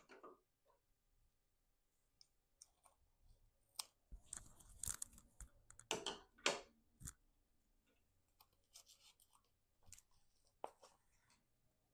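Faint scratching, rustling and clicks of hands fastening garden Velcro ties around a moss pole and a bamboo garden stake, busiest and loudest about four to seven seconds in.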